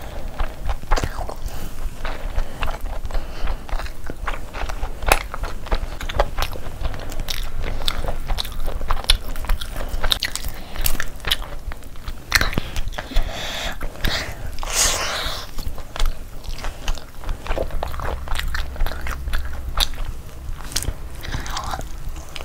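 Close-miked eating: biting and chewing tandoori chicken and biryani, with many quick wet clicks and crackles, and the roasted chicken being pulled apart by hand, loudest in the middle.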